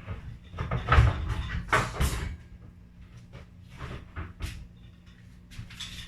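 Kitchen things being handled and set down: a string of knocks and clatters, loudest about one and two seconds in, then lighter ones, over a steady low hum.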